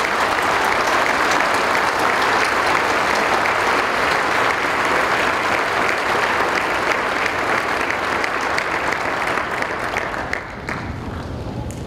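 Large audience applauding steadily, a dense patter of many hands clapping that dies down near the end.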